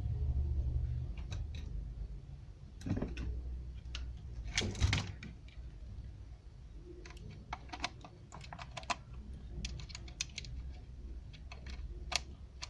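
Scattered sharp clicks and a few light knocks, thickest in the second half, from hands handling the satellite receiver and plugging in its cables.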